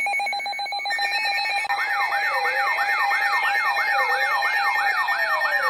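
Electronic siren and alarm tones. A rapidly warbling tone changes to a steady tone about a second in. About two seconds in, a fast yelping siren sweep joins, rising about three times a second, over a slower rising and falling wail.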